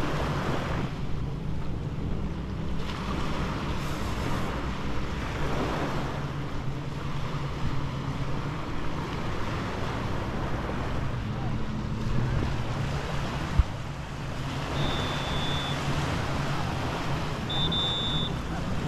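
Surf washing onto a sand beach and wind on the microphone, over a steady low engine hum. A single sharp knock comes about two-thirds of the way through, and short high beeps sound near the end.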